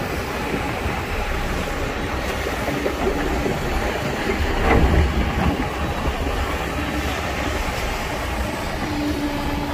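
Heavy diesel machinery running, a steady low rumble, with one brief louder knock about halfway through.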